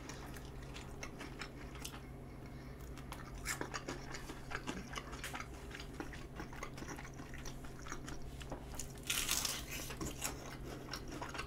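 Eating sounds: small mouth and handling clicks, then a crunchy bite into a piece of honey-glazed fried chicken about nine seconds in, the loudest sound, followed by chewing. A faint steady low hum sits underneath.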